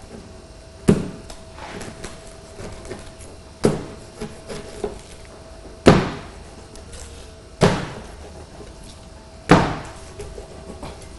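A large curved rocking pizza-cutter blade chops down through a baked pizza onto a plastic cutting board. It gives five sharp thuds about two seconds apart.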